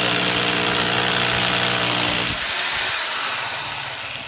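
CLASIC CLA-5426 1010 W hammer drill running under load, drilling into a wall. About two seconds in the trigger is released and the motor winds down with a falling whine.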